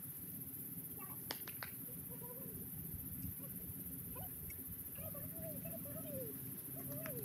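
Faint outdoor background noise, with a few short clicks about a second and a half in and several faint wavering high tones later on.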